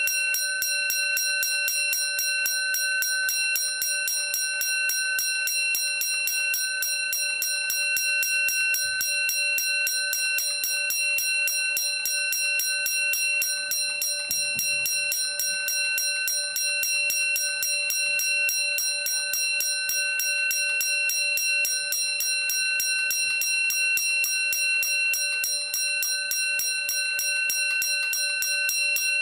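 1800s "Fire Cry" spring-wound fire alarm bell ringing continuously, its clapper striking the gong in rapid, even strokes that blend into one steady, unbroken ring, driven by its wound clockwork spring.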